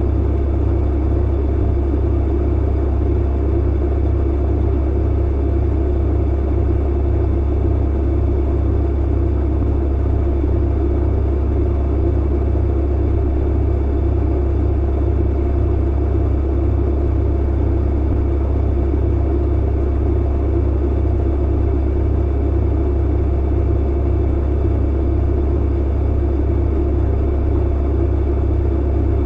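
Clothes dryer running: a steady, unbroken deep hum and rumble with no distinct thumps.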